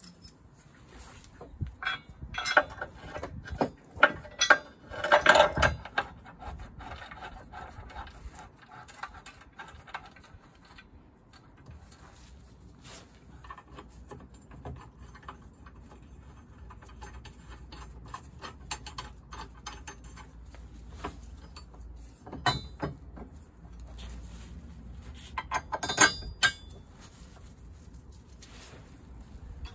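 Metal tow bar parts and bolts being handled and fitted together, clinking and knocking. There are two busy spells of clatter, a few seconds in and again near the end, with scattered single clicks between them.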